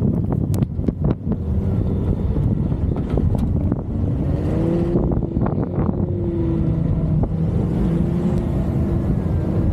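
Low, steady rumble of a vehicle in motion, with scattered sharp knocks in the first half and a droning tone that comes in about halfway through.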